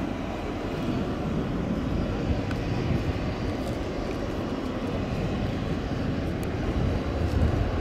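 Steady low rumble of aircraft engine noise, with no pitch changes or distinct knocks.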